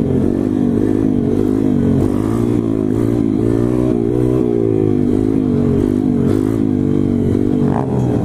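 SSR 140cc pit bike's single-cylinder four-stroke engine running under throttle while being ridden, its pitch rising and falling a little as the throttle is worked.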